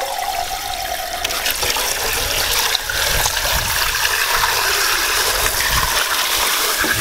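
Water from a garden hose rushing through a Bunch O Balloons filler, filling its bundle of water balloons over a cooler of water: a steady gushing hiss that slowly grows louder as the balloons swell.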